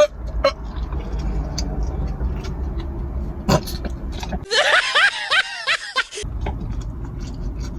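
Chewing and mouth clicks over a steady low rumble. About four and a half seconds in, a short edited-in clip of laughter cuts in and stops abruptly after under two seconds.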